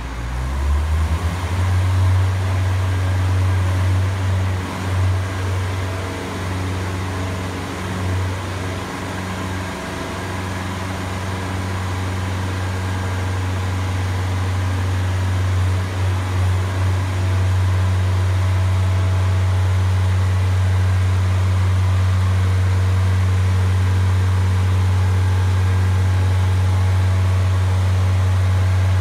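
JLG articulating boom lift running as its boom lifts the work platform: a steady low drone from its motor and hydraulic pump. The drone starts about a second in, wavers over the first several seconds, then holds steady.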